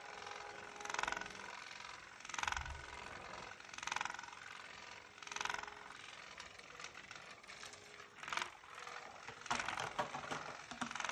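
Motorised spinning-butterfly cat toy running, its motor whirring in short bursts about every one and a half seconds. From about eight seconds in come irregular light clicks and scrapes, as of claws on a corrugated cardboard scratcher.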